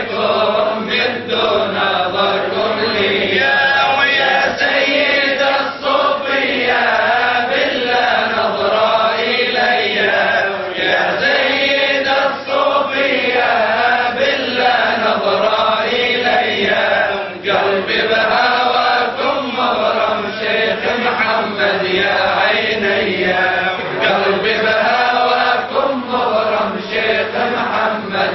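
A man chanting a Sufi devotional qasida (kaside) without instruments, in a continuous melodic line that bends up and down with few pauses.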